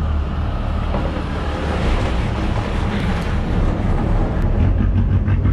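Passenger boat's engine running with a steady low drone and hum, growing slightly louder near the end.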